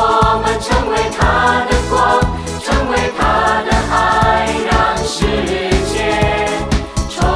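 Song with voices singing over a steady, even beat.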